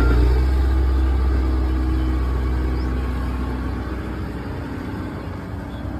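A low, steady engine rumble that fades gradually.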